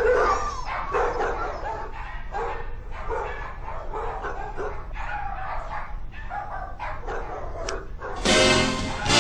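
Dogs in shelter kennels barking and yipping in short, irregular calls. Music starts loudly near the end.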